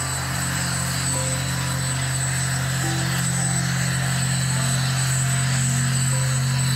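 Boeing 787 airliner and its pushback tug on the move: a steady drone with a strong low hum and a thin high whine above it, growing slightly louder.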